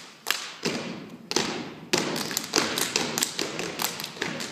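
Dancers' feet stamping on a stage floor in a dance routine: a run of sharp stamps and taps, a few spaced hits at first, then a quicker, denser beat from about two seconds in.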